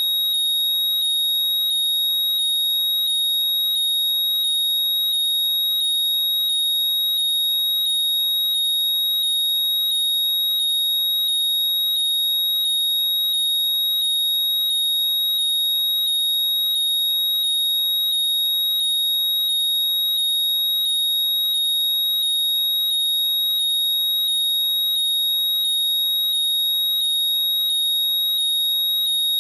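Apple AirPods 'Find My' locating sound: rising electronic chirps repeating about twice a second over a steady high tone, played loud and unbroken.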